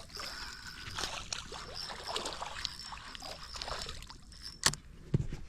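Water splashing and sloshing as a hooked largemouth bass thrashes near the boat, with a sharp knock and a low thump near the end.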